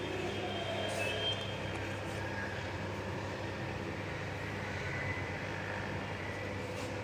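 Steady low background hum of room noise, with a couple of faint clicks about a second in.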